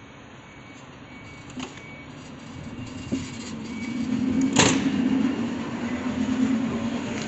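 Locomotive-hauled passenger train of coaches rolling slowly past along the platform, its wheels' rumble growing louder as the coaches come by, over a steady low hum. A single sharp clack about halfway through.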